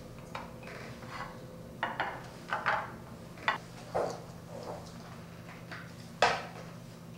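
Short clinks and knocks of dishes and utensils being handled on a kitchen counter during appetizer plating, about six separate taps, the loudest near the end.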